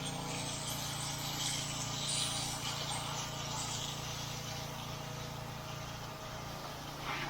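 Engine of a gas-powered soft-wash spray rig running steadily while the spray hisses from the hose, the hiss easing about four seconds in.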